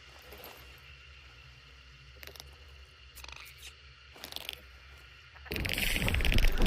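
Sound effect of a stalker beetle creature: a few faint clicks and scrapes over a low hum, then about five and a half seconds in a loud, rapid rattling buzz starts and grows louder.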